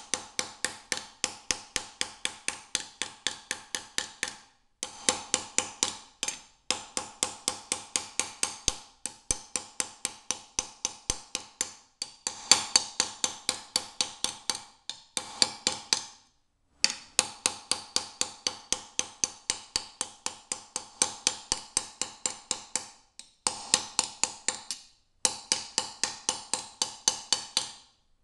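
Small ball peen hammer striking a 14-gauge steel plate laid over a dent in a wooden stump: a steady run of sharp, ringing metal blows, about four a second, pausing briefly every few seconds. The plate is being dished and curved into shape.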